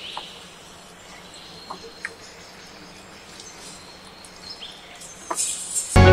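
Faint outdoor background with birds chirping now and then, and a few soft wet squelches from a hand kneading raw mutton pieces in a yogurt marinade. Music comes in right at the end.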